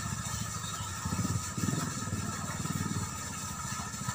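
A small engine running off-screen, a low rapid pulsing that swells and fades a few times.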